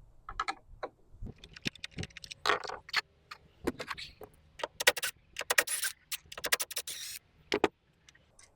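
Irregular metallic clicks, clinks and rattles of hands working on refrigerator door hinge hardware, sparse at first and densest from about four to seven seconds in.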